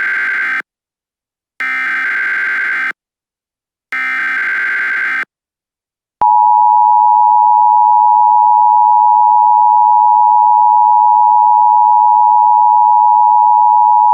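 Emergency Alert System signalling. First the end of one digital SAME header data burst, then two more, each just over a second long with about a second between them. After a second of silence, the steady two-tone EAS attention signal comes on abruptly about six seconds in and holds.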